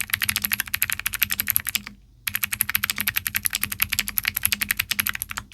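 Rapid typing on a mechanical keyboard fitted with Outemu Cross White clicky switches: a dense run of sharp clicks that stops briefly a little over two seconds in, then resumes.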